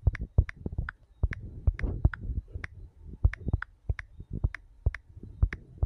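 Typing on a smartphone's touchscreen keyboard: quick, irregular taps, about three a second.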